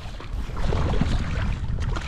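Wind rumbling on the microphone, with water slapping and splashing against a kayak hull.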